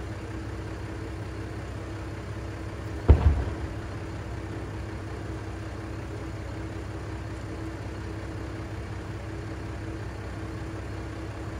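Diesel railcar's engine idling with a steady low hum. A single sharp firework bang about three seconds in, and a much louder firework boom right at the end.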